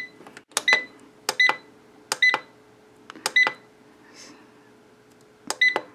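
CookJoy air fryer's touch-panel keys pressed five times, each press a short tap followed by a brief high beep, as the cook time is stepped down one minute at a time.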